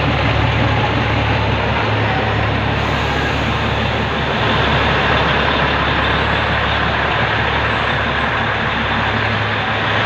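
Matheran mini train, a narrow-gauge hill train, running: a steady running noise with a constant low hum.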